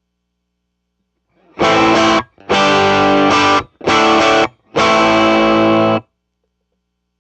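Electric guitar played through a 1963 Vox AC-10 valve amplifier, overdriven: four distorted chords in quick succession. The second and fourth are held about a second each, and each is cut off sharply.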